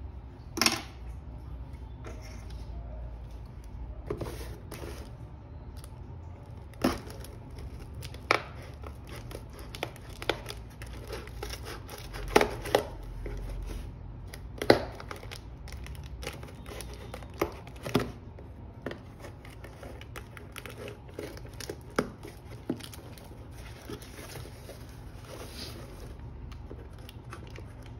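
A taped cardboard parcel being opened by hand: packing tape tearing and the wrapping crinkling, with scattered sharp snaps and clicks.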